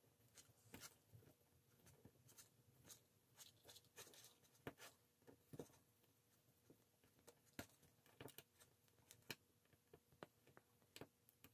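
Near silence with faint, scattered ticks and light scraping from a small screwdriver turning tiny screws to fasten a cooling fan onto an RC speed controller's heatsink.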